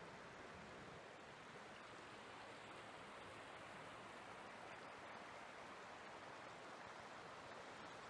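Faint, steady rush of a river flowing over a shallow riffle, even throughout with no distinct splashes.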